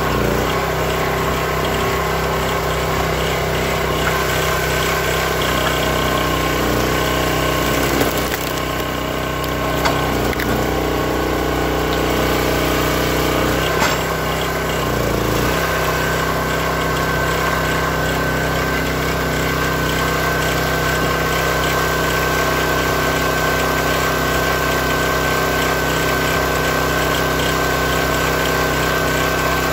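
Hydraulic log splitter's small gas engine and pump running steadily. Its tone shifts for several seconds midway, with three sharp knocks in the middle.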